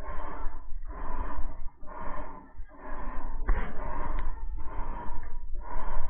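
Electrolux LTD11 top-loading washing machine agitating, a swishing stroke about once a second over a low motor rumble. The repairer says this machine's motor must be replaced.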